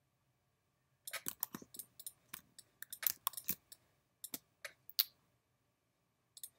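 Irregular clicking of a computer mouse and keyboard, starting about a second in and going on for about four seconds.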